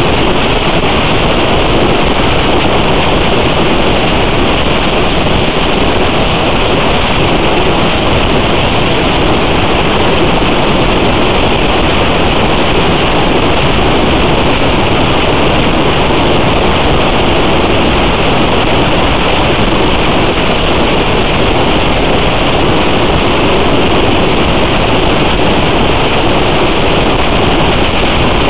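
Loud, steady rushing hiss with no tones or breaks.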